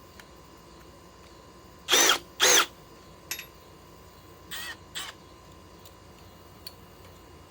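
Cordless drill run on an M12 battery, with its clutch on setting 3, pulsed in two short loud bursts about two seconds in, then two fainter ones a couple of seconds later, the motor pitch rising and falling with each trigger pull. The clutch lets go and the fastener in the old stump does not turn.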